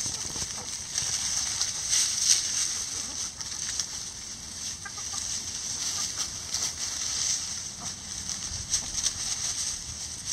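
Free-range hens clucking softly while they scratch and forage through dry pine straw and leaves, with scattered rustling. A steady high-pitched hiss runs underneath.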